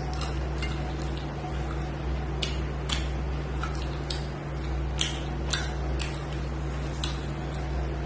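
Close-miked eating by hand: chewing and mouth smacks with sharp, short clicks scattered irregularly, and fingers mixing rice on a steel plate near the end, over a steady low hum.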